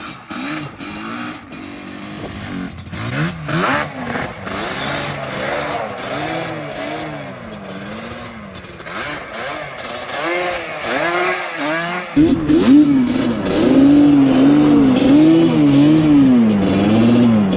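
Two-stroke ATV engine being ridden, its revs rising and falling again and again as the throttle is worked. It gets much louder about twelve seconds in as the quad comes close.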